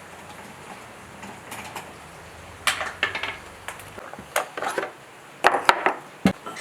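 Metal tools and parts clinking and clanking against each other, a few sharp knocks in irregular clusters, the loudest near the end.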